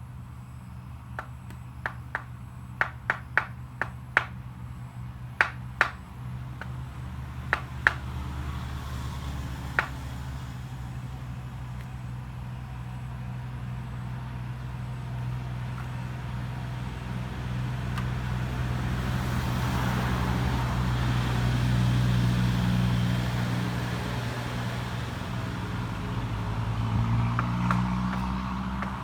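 About a dozen sharp knocks in the first ten seconds, over the low drone of an engine that grows louder toward the middle and again near the end.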